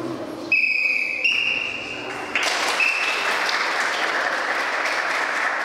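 A referee's whistle sounds in two long, steady blasts, the second a little higher, calling for the judges' flag decision. Applause from the audience then starts about two and a half seconds in and carries on, with one more short whistle tone through it.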